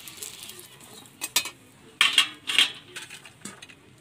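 Metal spatula clinking and clanking against a steel wok and plate as fried eggplant pieces are lifted out of the oil: a couple of sharp clicks about a second in, then louder clanks around the middle.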